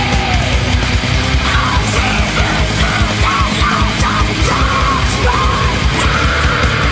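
Loud, heavy, aggressive rock music with a pounding low beat. A high line bending in pitch rides over it from about a second and a half in.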